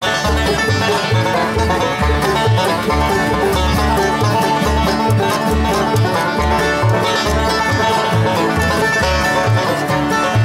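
Acoustic bluegrass band playing an instrumental: five-string banjo picking over mandolin and acoustic guitars, with an upright bass plucking a steady beat about twice a second.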